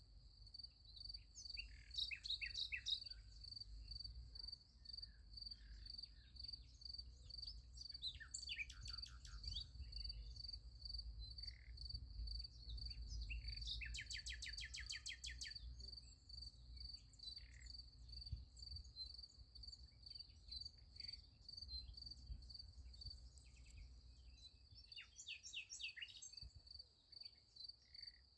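Crickets chirping in a steady, even pulse of about three chirps a second, with songbirds calling in short phrases over them, one a fast trill midway. A faint low rumble sits underneath.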